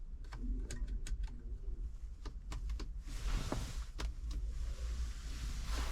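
Sharp clicks of car steering-wheel control buttons being pressed to change radio stations, with faint audio from the head unit; a hiss comes up about three seconds in over a steady low hum.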